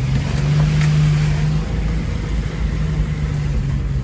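Jeep Wrangler's engine, heard from inside the cabin, pulling at a fairly steady pitch while driving over rough, muddy ground, with an even rush of tyre and body noise underneath.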